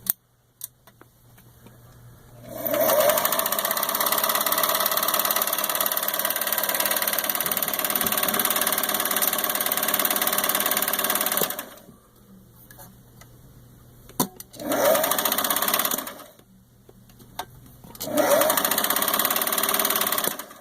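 Singer Stylist 457 zigzag sewing machine running under its foot pedal in three bursts: a steady run of about nine seconds starting a couple of seconds in, then two short runs with a click just before the first of them.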